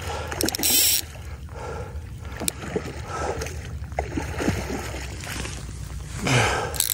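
A large hooked trout splashing and thrashing at the water's surface while it is played on a fly rod, with water sloshing; a louder splash comes about half a second in.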